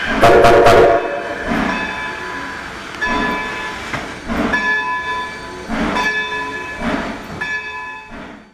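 Train sound effect: a short horn blast just under a second in, then a bell striking about every 1.3 seconds over running train noise. The sound stops just before the end.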